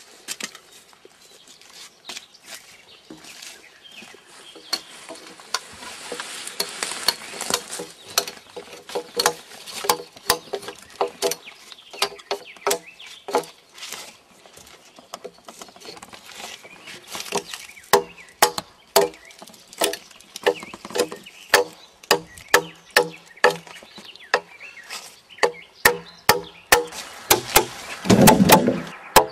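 Woodworking hand tool striking a round log being hewn and debarked: repeated sharp knocks in runs of about two a second, each with a hollow ring from the log. A louder, deeper burst comes near the end.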